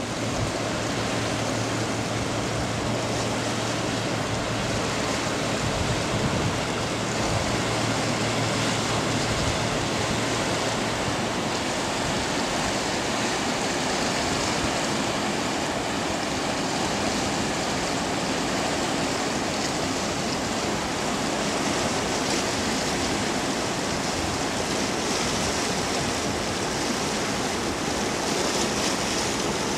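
Steady rushing of water from a container ship's bow wave as the ship passes close. A low steady hum sits under it for about the first ten seconds.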